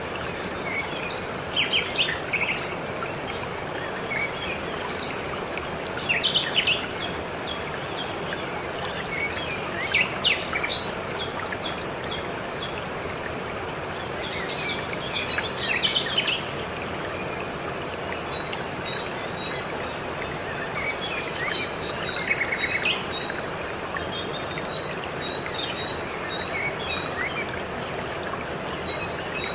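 Waterfall rushing steadily, with songbirds chirping over it in short clusters, including runs of quick high repeated notes, a few times through the stretch.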